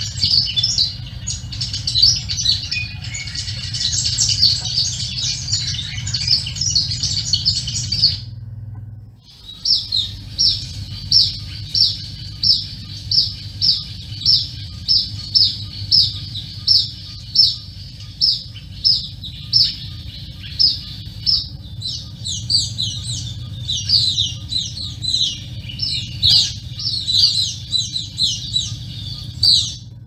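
Collared sunbird calling with a fast, high chatter; after a short break about eight seconds in, bronze mannikins give a steady series of high chirps, about two a second, which grow denser and busier in the last third. A steady low background noise runs underneath.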